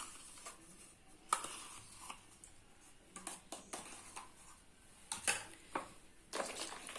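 Quiet, irregular clinks and scrapes of a kitchen utensil against a mixing bowl as yogurt is added to the cake batter.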